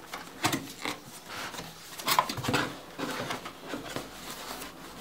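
Hands rustling tissue paper and cardboard packaging while unpacking a box: a run of irregular crinkles and light knocks.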